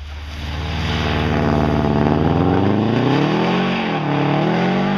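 Rally car engine at full throttle on a snow stage, revs climbing steadily and getting louder as it approaches, then dipping and picking up again about three and a half seconds in.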